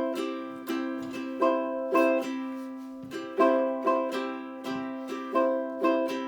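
Chords strummed on a small stringed instrument as the lead-in to a song, each strum ringing out and fading before the next, about one to two strums a second.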